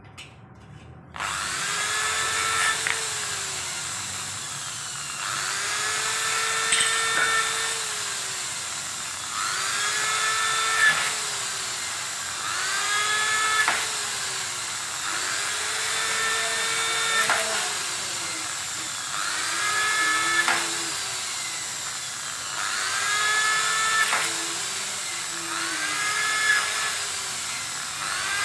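Corded electric drill boring into an aluminium door frame for a pivot hinge's axis. The motor starts about a second in, then its pitch rises and falls over and over, roughly every three seconds, with a short sharp click near the top of most cycles.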